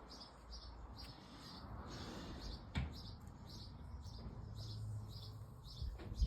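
A small bird chirping, short high notes repeated about twice a second, over a faint low rumble. A single sharp click about three seconds in.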